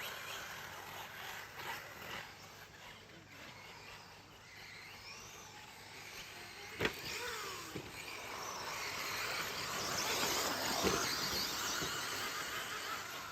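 Electric 4x4 short course RC trucks racing on a dirt track: motors whining up and down in pitch over a haze of tyre and track noise. There is a sharp knock about seven seconds in, and the trucks get louder near the end.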